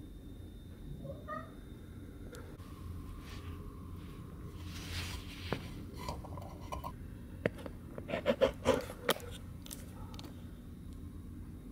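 A cat meowing several times in short calls: a faint one about a second in, a few around six seconds, and the loudest cluster of short calls about eight to nine seconds in.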